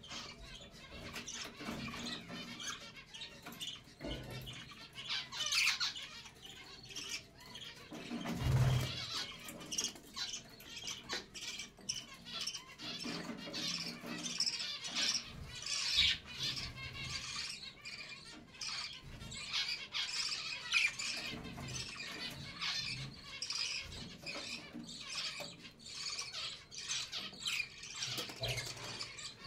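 Budgerigars chattering and chirping continuously, many short high calls overlapping. There is one dull low thump about eight seconds in.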